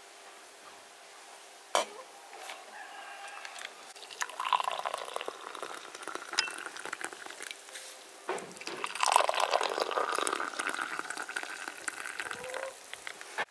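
Tea poured from a porcelain teapot into two cut-glass tea glasses, one after the other, the splashing changing as each glass fills. A single sharp knock about two seconds in.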